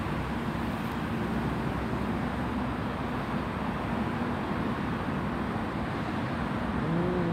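Black-and-white street cat growling in a low, steady rumble, broken now and then by breaths, with a brief rising-and-falling moan near the end.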